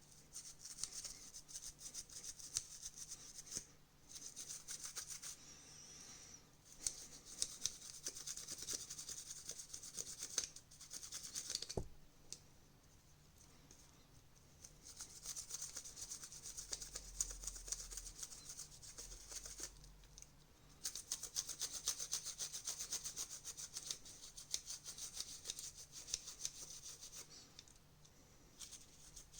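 Scrubbing on the plastic and rubber parts of a disassembled TV remote during cleaning: quick, scratchy rubbing strokes in spells of a few seconds with short pauses between them.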